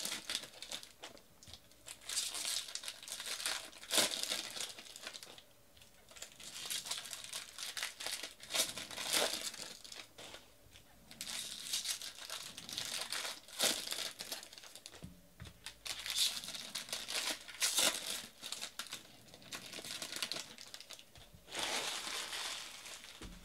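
Foil wrappers of Bowman baseball card packs crinkling and tearing as packs are ripped open by hand, in irregular bursts of rustling a second or two apart.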